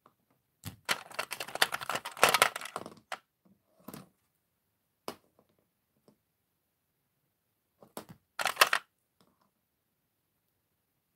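Small plastic toy figures clattering and clicking as a hand rummages through them in a plastic tray and sets them down. There is a longer burst of rattling about a second in, a few single clicks, and a short burst of rattling about eight seconds in.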